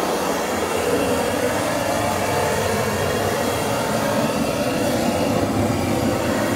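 Hose-fed handheld gas torch burning with a steady roar as its flame is played over a stainless steel sink, heating the metal to kosher it.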